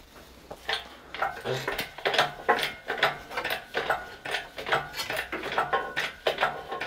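Metallic clinks and knocks from a hydraulic workshop crane and its hoist chains as the crane is worked to lift an engine block.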